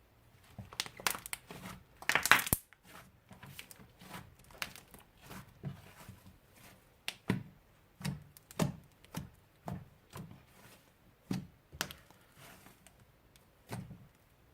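Slime and its plastic packaging being handled: a run of short crackles, pops and crinkles, with a louder rustling burst about two seconds in.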